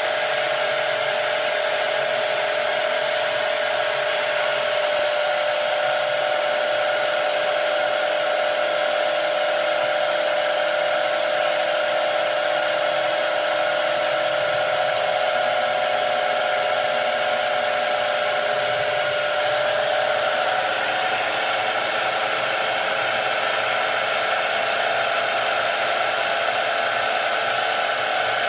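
ZX7045 mill-drill cutting aluminium plate with a small end mill: a steady spindle whine with cutting noise, its main tone shifting slightly about twenty seconds in.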